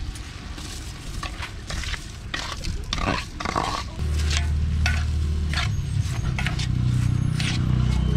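Raw rice poured into a pot of sizzling chicken, then stirred with a metal spatula that scrapes against the pot again and again. A steady low rumble comes in about halfway through.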